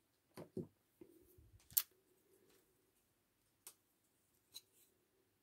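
Light clicks and taps of small acrylic diamond-painting earring pieces being handled and set down, with a faint rustle about a second in; the sharpest click comes about two seconds in.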